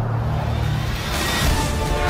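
Dramatic soundtrack music: a deep sustained drone, with a swelling rush of noise about a second in and gliding tones entering near the end.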